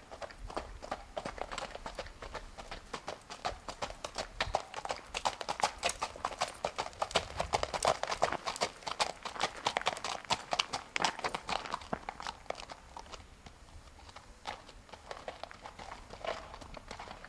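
Hoofbeats of a Missouri Fox Trotter filly on a packed gravel drive, a quick, even clip-clop of her four-beat fox trot. The hoofbeats grow louder through the middle and fade toward the end as she moves away.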